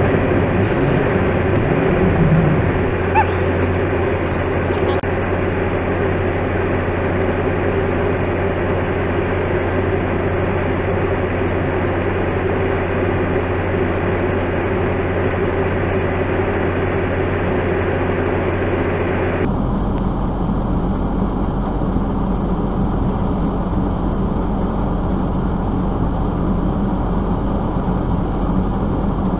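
Steady vehicle engine and road drone. About two-thirds through it changes abruptly to a deeper, duller hum.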